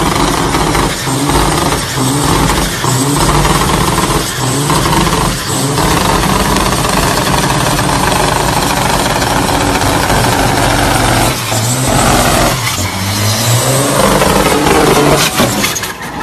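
Semi truck's diesel engine revving hard during a burnout, its pitch climbing and falling again and again, over the hiss of rear tyres spinning on pavement.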